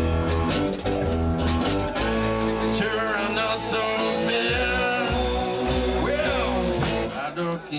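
Live blues-rock band: cigar box guitars over bass and drums, with drum hits strongest in the first two seconds and singing over the band after that.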